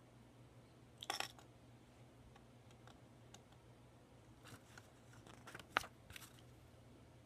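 Faint handling of LEGO bricks and a paper instruction booklet. A short rustle comes about a second in, then a few light clicks and rustles near the end as a booklet page is turned.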